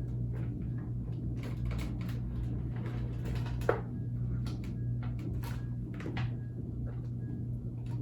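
Scattered light knocks and clicks of objects being handled, with one sharper click about three and a half seconds in, over a steady low hum. Faint short beeps repeat in the second half.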